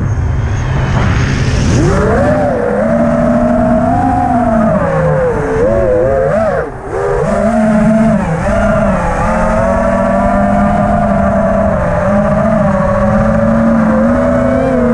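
FPV freestyle quadcopter's brushless motors and propellers whining, heard from its onboard camera, the pitch rising and falling with the throttle. The throttle briefly drops about seven seconds in.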